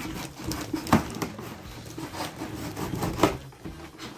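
Heavily taped cardboard shipping box being worked open: tape and cardboard scraping and crackling, with two louder knocks, about a second in and a little past three seconds.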